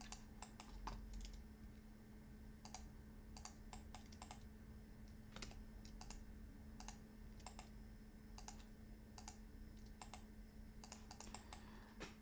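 Faint, irregular clicks of a computer keyboard and mouse being worked, some single and some in quick clusters, over a steady low hum.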